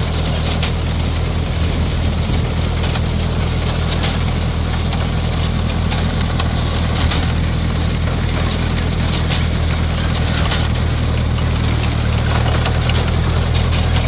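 Tractor engine running steadily while towing a McCormick-Deering grain binder cutting wheat. The binder's chains, reel and cutter add a mechanical clatter with occasional sharp clacks.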